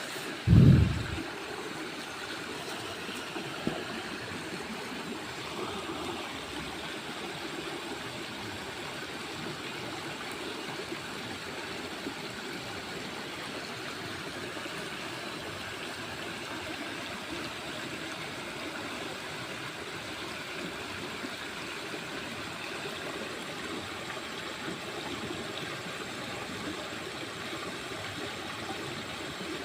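Steady rush of flowing stream water, with a brief low thump about a second in.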